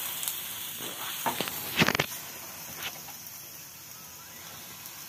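Ghee-coated stuffed paratha sizzling on a hot iron tawa, with a few sharp taps and scrapes of a metal spatula pressing it down in the first two seconds. The sizzle slowly fades.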